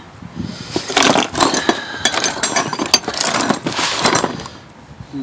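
Loose metal hand tools (a wrench, screwdrivers, bolts, Allen keys) clattering and clinking as a hand rummages through a cardboard box of tools, looking for an Allen key; the rattling dies down near the end.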